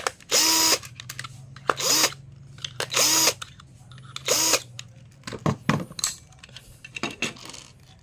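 Cordless drill-driver spinning a screwdriver bit in four short bursts, each spinning up and winding down, backing screws out of a plastic tool-battery case. Scattered clicks and knocks of the plastic case and loose screws follow in the second half.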